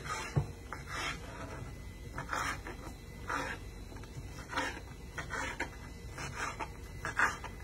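Kitchen knife cutting bacon into small squares on a plastic cutting board: a run of irregular knife strokes rubbing and tapping against the board, about one to two a second.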